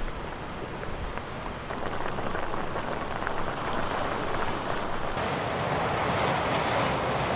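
Sea surf washing on a rocky shore, with wind on the microphone, swelling louder about five seconds in.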